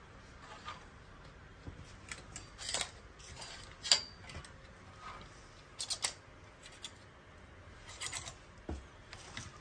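Clothes hangers being slid along a metal clothing rail: a series of sharp clicks and short scrapes, the loudest about four seconds in, with a quick cluster of clicks around six seconds.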